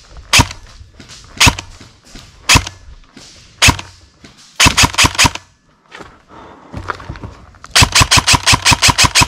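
Airsoft rifle firing loudly: single shots about once a second, a quick burst of four about halfway, then a rapid full-auto string of about eight shots a second near the end.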